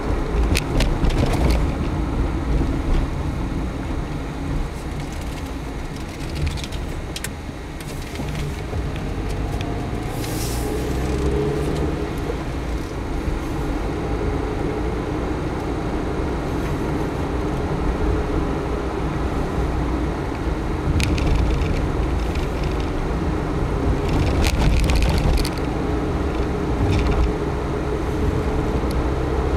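Car driving along town streets, its engine and tyre rumble heard from inside the cabin, with the engine note rising for a few seconds about ten seconds in.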